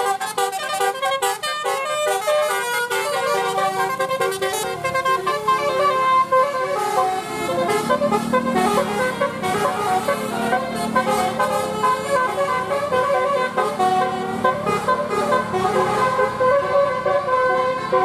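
Bus telolet horn: a multi-tone air horn playing a quick stepping tune of several notes sounding at once, running on without a break. The bus's engine can be heard beneath it as the bus passes, about halfway through.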